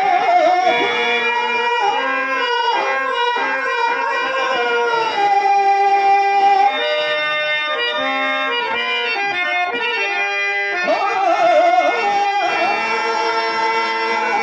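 Harmonium playing a melodic interlude in held reed notes and chords, accompanying a Telugu drama padyam; a singer's wavering voice comes in briefly about eleven seconds in.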